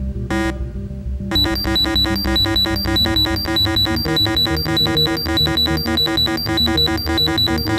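Arduino DIY airsoft bomb's buzzer gives a last single countdown beep, then about a second in breaks into a rapid, evenly repeating electronic beeping alarm. The alarm signals that the countdown has run out without the disarm code, and the bomb has 'exploded'.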